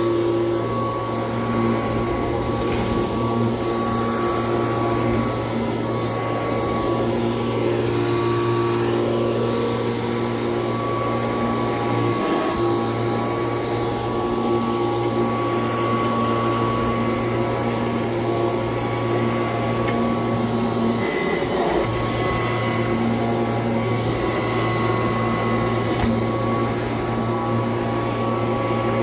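Kirby Heritage II upright vacuum running steadily with a constant motor whine, picking up gritty debris from a rug. The debris goes straight through its fan, so it crackles as it is sucked up.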